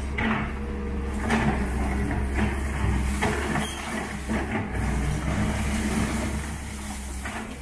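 Doosan DX140W wheeled excavator's diesel engine running steadily while its bucket rakes through demolition rubble, with irregular crashes and clatter of broken brick, concrete and timber, the loudest about a second and a half in.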